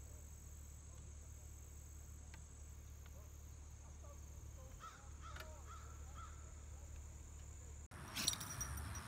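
Faint outdoor ambience with a low rumble: a steady high insect drone for the first few seconds, and a bird calling a few times about five seconds in. Near the end the sound cuts to another scene with one sharp click.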